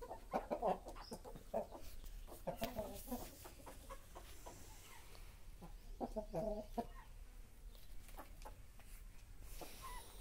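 Aseel chickens calling in short bursts, loudest about half a second in, again near three seconds and about six seconds in.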